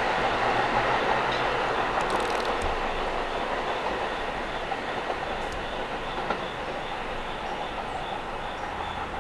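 New York City subway train running on the rails with a clickety-clack, its noise growing gradually quieter.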